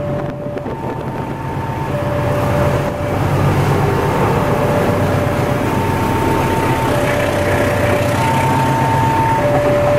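Diesel-hauled passenger train passing close by: the locomotive's engine at first, then the steady noise of the coaches' wheels on the rails, growing louder. Over it the level-crossing warning sirens sound a high and a low tone in turn, each about a second long.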